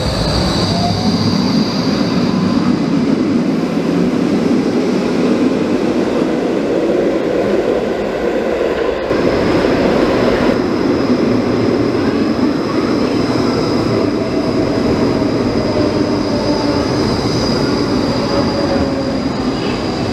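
Electric trams running on steel rails through an underground station: a steady rolling rumble with a thin, high wheel squeal on top. The sound changes abruptly about nine seconds in, when another tram approaches.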